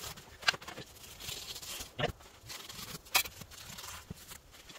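A knife cutting through the ring of a tent's stove jack, overhead: three short, sharp cutting scrapes, the loudest about three seconds in.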